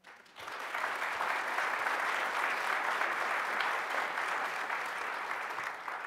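Audience applauding after a speech, a steady clapping that fades in about half a second in.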